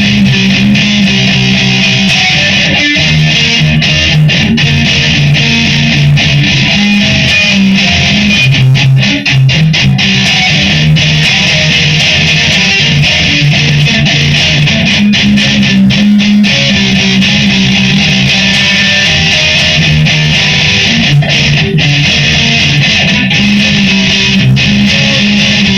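Electric guitar strummed and picked without singing: an instrumental passage of the song, played continuously with changing bass notes, recorded on a phone.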